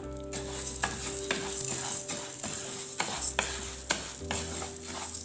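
Split moong dal being stirred as it roasts in hot ghee in a pan: a steady gentle sizzle, with repeated scrapes and taps of the spoon against the pan.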